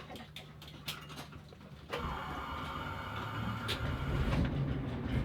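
Ford Trimotor's Pratt & Whitney Wasp nine-cylinder radial engine starting up. It comes in suddenly about two seconds in and settles into a steady low running sound that builds louder near the end.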